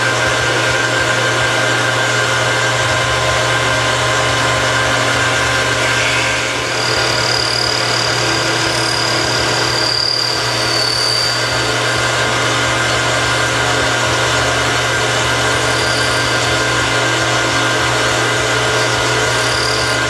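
Metal lathe running steadily while a knob is faced and turned, with a thin high squeal for a few seconds midway as the cutting tool works the part.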